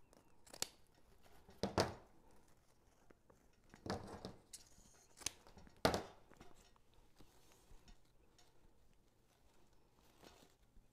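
Scissors snipping ribbon ends: a handful of short, sharp snips spread over the first six seconds, then faint ribbon handling.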